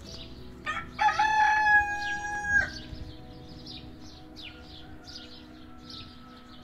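A rooster crowing once: a short note, then a long held call lasting about a second and a half that breaks off sharply. Small birds chirp repeatedly in the background.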